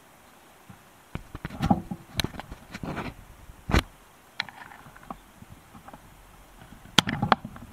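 Scattered light clicks, knocks and short rustles close to the microphone, with a few sharper clicks about seven seconds in.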